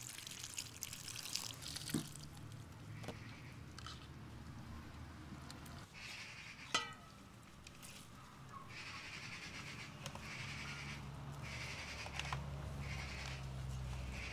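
Water poured from an enamel jug over fresh button mushrooms, splashing and trickling as they are rubbed clean by hand, in several short pours. One sharp click about seven seconds in.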